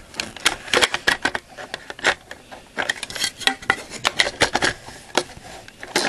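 Irregular plastic clicks and knocks as the battery and top cover are handled at the battery compartment of a plastic electric airsoft rifle.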